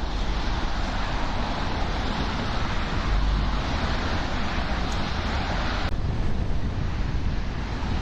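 Steady city traffic rumble with wind buffeting the camera's onboard microphone. The higher hiss drops away suddenly about six seconds in.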